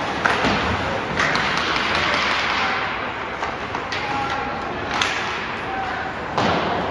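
Ice hockey play in a rink: sticks and puck clacking and thudding several times, the loudest hit near the end, over skates scraping the ice and voices calling out.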